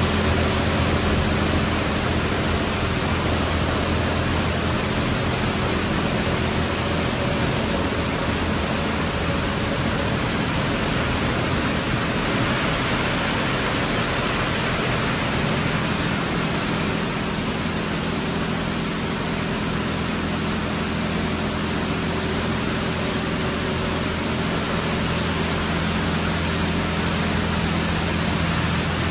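D&S IQ 2.0 touchless in-bay car wash running: a loud, steady rushing noise with a faint low motor hum underneath.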